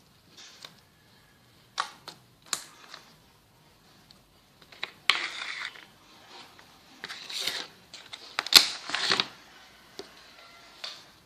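Slime being squeezed and worked by hand, giving irregular sharp sticky clicks and pops, with a few longer crackly squelches, the loudest about halfway through and near the end.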